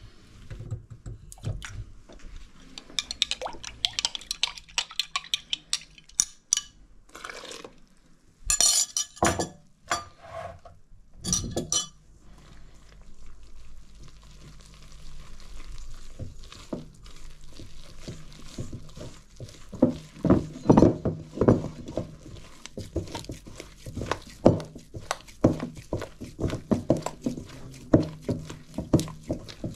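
Kitchen prep sounds. In the first half there is clinking of a glass measuring jug and liquid being poured, with a few sharp, loud clanks. From about halfway, a hand mixes flour and liquid into dough in a stainless steel bowl: a fast run of soft squelches and knocks against the bowl.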